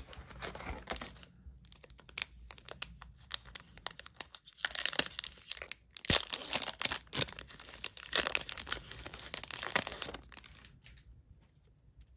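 Yu-Gi-Oh booster pack wrapper being torn open and crinkled in the hands, with dense crackling in two stretches: briefly at the start, then louder from about five to ten seconds in.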